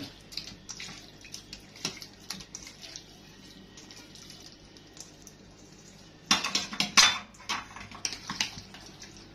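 Stainless steel colander and mixing bowl clinking and knocking as raw chicken pieces are tipped from the colander into the bowl by hand, with scattered light clinks at first, then a burst of louder metal clatter about six to seven seconds in as the colander is set down on the counter.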